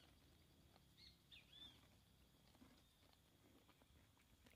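Near silence, with a few faint short bird chirps about a second in.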